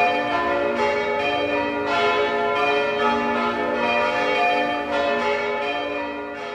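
Church bells pealing, several bells struck one after another with their tones ringing on and overlapping, fading down near the end.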